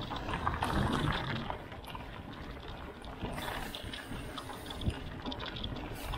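Bicycle riding along a dirt forest trail: a steady rush of tyre and ride noise with frequent small irregular rattles and knocks.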